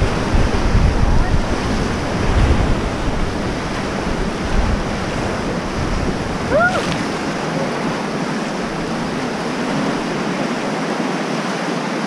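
Whitewater rapids rushing around an inflatable raft, a steady loud wash of water, with wind buffeting the microphone in the first half. A brief rising-and-falling tone cuts through about six and a half seconds in.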